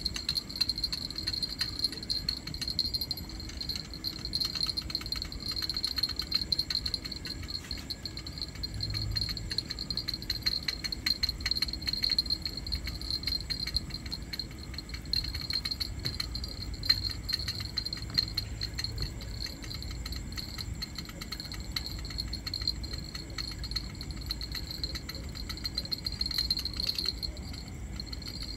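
Crickets trilling steadily at a high pitch, with a dense fast rattle of clicks and a low rumble underneath.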